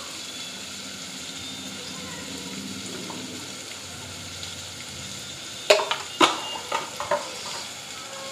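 Chopped tomatoes and onion sizzling steadily in oil in an open pressure cooker on a gas flame. A quick cluster of sharp clinks, a spoon against a spice jar, comes about six seconds in.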